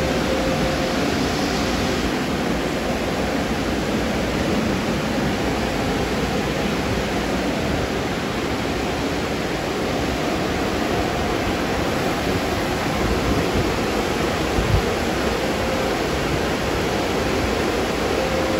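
Automatic car wash tunnel running: a steady rush of spraying water and machinery, with one brief low thump about fifteen seconds in.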